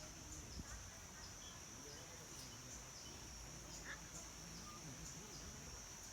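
Insects droning steadily and faintly at a high pitch, with faint low voices underneath.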